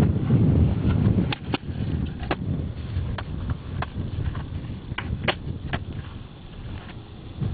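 Skateboard wheels rolling over concrete: a low rumble, heaviest in the first second or so, with a scattering of sharp clicks.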